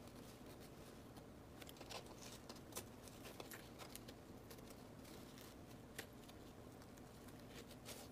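Near silence: faint room tone with a few soft, brief ticks.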